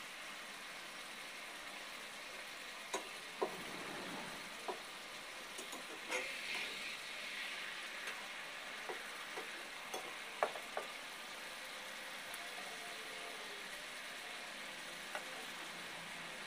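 Tilapia pieces frying in a thick spiced gravy with a steady sizzle, while a metal spatula stirs and turns them, clicking and scraping against the pan about a dozen times.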